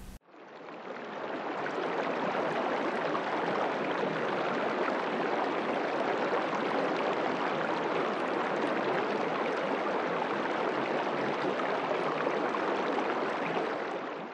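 Steady rushing of water with no rhythm of waves, fading in over the first second or so and fading out at the end.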